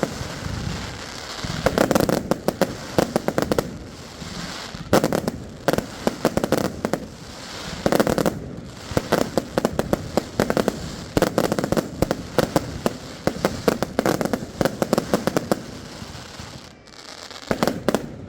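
Fireworks going off in rapid volleys: clusters of sharp bangs and crackles, one after another, tapering off near the end.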